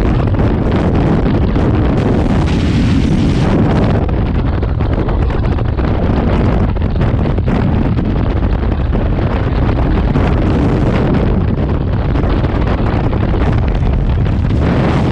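Freefall wind buffeting a skydiver's camera microphone: a loud, steady, deep rush that does not let up.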